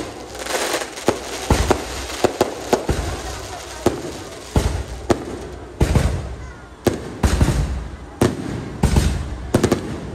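Aerial fireworks going off overhead: an irregular string of sharp bangs from bursting shells, a dozen or more, with crackling between them.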